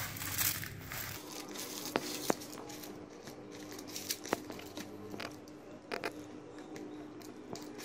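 Hands crumbling and squeezing warm roti with ghee, sugar and chopped nuts in a plastic bowl: soft crumbly squishing with a few sharp clicks against the bowl.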